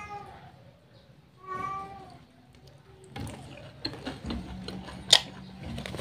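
A cat meows twice, once right at the start and again about a second and a half in. From about three seconds on there is crackly crunching and chewing of crispy fried chicken, with one sharp crunch a little after five seconds.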